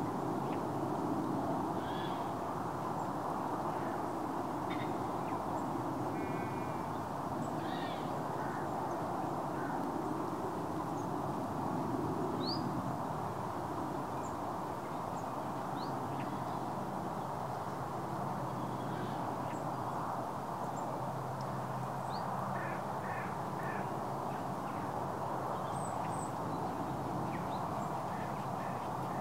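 Shallow stream running steadily over a stony bed, with scattered short bird calls above it.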